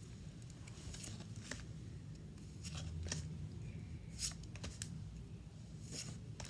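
Pokémon trading cards sliding against one another as a stack is flipped through card by card: a string of short, crisp swishes, roughly one a second.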